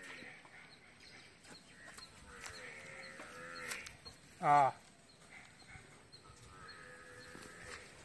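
A single short, loud bleat from a farm animal about four and a half seconds in, with fainter calls before and after it.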